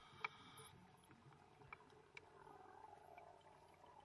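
Near silence, with a few faint, scattered clicks and faint, very high whistling glides.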